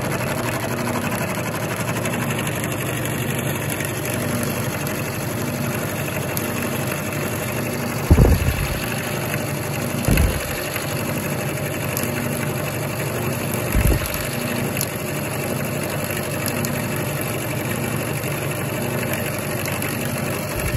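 Vertical milling machine running a roughing end mill along the side of a metal block: a steady motor and cutting drone with a low hum, the cutter dull and leaving a heavy burr. Three short low thumps break in about eight, ten and fourteen seconds in.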